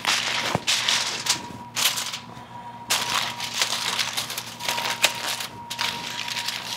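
Aluminium foil crinkling and crackling in irregular spurts as it is pressed and crimped down over the rim of a metal baking pan to form a foil tent.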